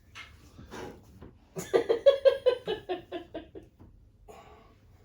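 A person laughing: a quick run of 'ha-ha' pulses about a second and a half in, slowly dropping in pitch and lasting about two seconds.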